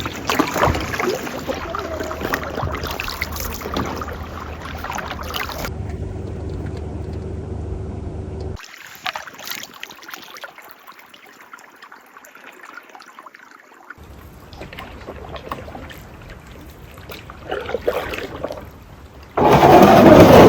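Canoe paddling on a lake: paddles dipping and water splashing and lapping at the hull, heard as several short clips with changing loudness. A sudden loud burst of noise comes in about a second before the end.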